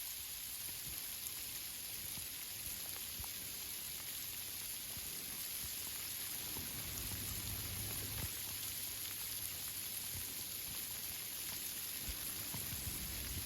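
Rain falling through a tree canopy: a steady hiss with faint scattered drops striking the leaves.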